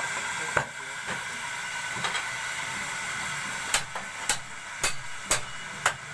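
A steady machine hiss with a faint whine runs under the sound. A few scattered sharp knocks come early. From a little past halfway, regular sharp knocks come about two a second, like hammer blows.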